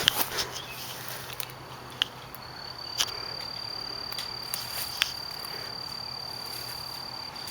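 A cricket's steady high-pitched trill sets in about two seconds in and holds on. A few sharp clicks are heard about two, three and five seconds in.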